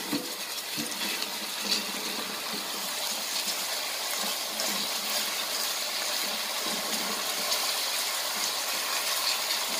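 Diced onion and crushed garlic sizzling steadily in hot olive oil in a stainless steel pot while being stirred with a spatula.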